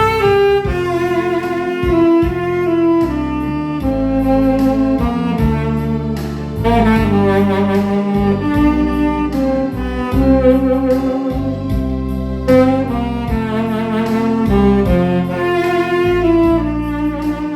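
Saxophone playing a slow melody in long held notes with vibrato, over an accompaniment with a bass line.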